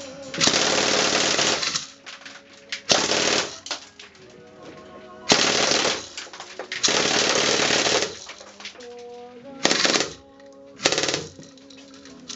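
Homemade turret-mounted airsoft machine gun firing six bursts of rapid fire, the first and two middle bursts each over a second long, the last two short.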